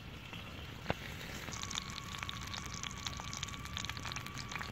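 Small wood cooking fire crackling and sizzling under a stone slab roasting two plucked spotted doves: one sharp pop about a second in, then a quick patter of small pops and crackles from about a second and a half on, with a faint steady high whistle.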